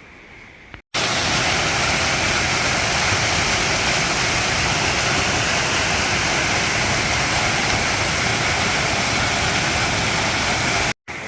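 Steady, loud rushing of a waterfall heard close up. It starts suddenly about a second in and cuts off just before the end.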